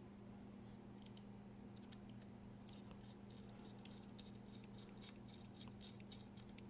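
Faint, quick clicks and light ticks of small metal folding-knife parts being handled and fitted during reassembly, over a steady low hum.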